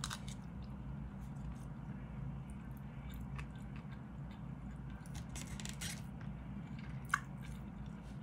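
A person chewing a mouthful of rice and ham, with faint clicks and scrapes of a plastic fork and spoon in a plastic food container and a sharper click about seven seconds in. A steady low hum runs underneath.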